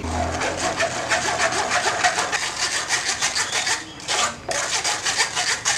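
Steel spoon scraping and pressing blended pomegranate pulp against a stainless-steel mesh strainer in quick, rhythmic rasping strokes, with a brief pause about four seconds in.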